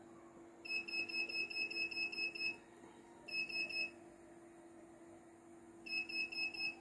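Control-panel keys of a CNY E900 embroidery machine beeping as the scroll button is pressed to step through the stored designs: three quick runs of short, high electronic beeps, about six a second, the first and longest a little under a second in. A faint steady hum lies underneath.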